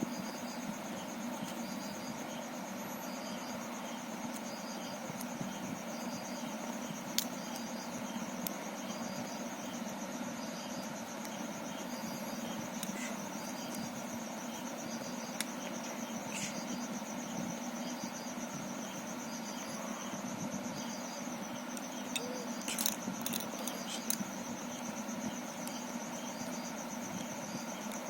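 Crickets chirping: a steady high trill with shorter chirps repeating about once a second, over a low steady hum. A few faint sharp clicks come in, most of them in a cluster near the end.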